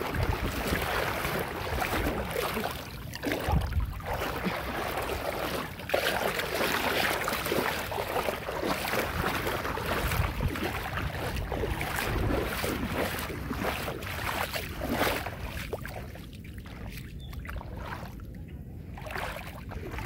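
Water and wind noise at the edge of a shallow tidal channel, with wind gusting on the microphone; it eases off a little near the end.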